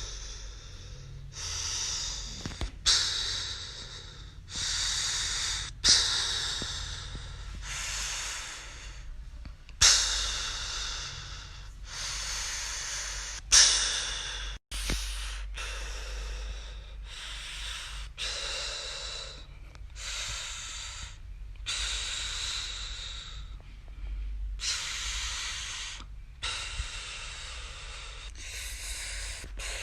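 A young boy snoring in his sleep: noisy breaths in a steady rhythm, about one every one and a half to two seconds, a few of them starting with a sudden louder burst.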